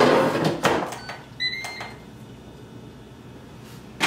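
Clatter and knocks of things handled on a kitchen counter, then short electronic beeps from an air fryer's control panel as its buttons are pressed about a second and a half in. A knock follows near the end.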